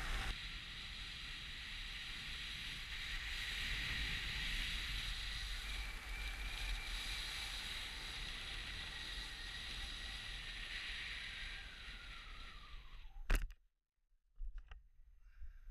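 Wind rushing over a helmet-mounted GoPro during a parachute descent under canopy: a steady hiss with a faint whistle that slides down in pitch. About 13 seconds in it ends abruptly with a sharp click, followed by a moment of near silence and a few faint knocks.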